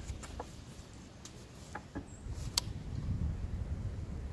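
Faint handling noise from an AR-15 as it is shouldered and aimed: a few light clicks over a low rumble that grows slightly louder toward the end.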